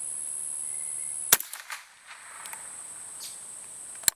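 A single sharp crack about a second in as the hammer falls on the Rossi Matched Pair's .22 LR barrel, then another sharp metallic click near the end. Crickets chirr steadily in the background.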